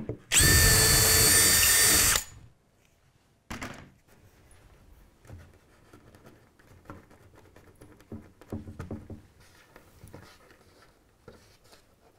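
Cordless drill running with a steady whine for about two seconds, boring a new hole through the layout baseboard for a point's misplaced frog wire. It is followed by a brief scrape and faint taps and rustles as the track is laid back on the board.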